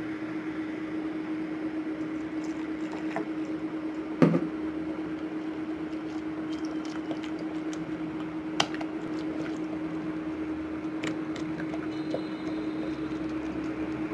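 Spatula stirring a thick, sticky white-glue and detergent mixture in a glass bowl as it sets into slime, with soft wet stirring and a few sharp clicks of the spatula against the glass, the loudest about four seconds in. A steady low hum runs underneath.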